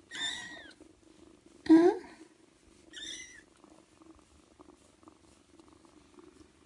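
Kitten purring steadily while it is petted. Over the purr come three short, pitch-bending vocal sounds: one at the start, one a little under two seconds in, and a high one about three seconds in.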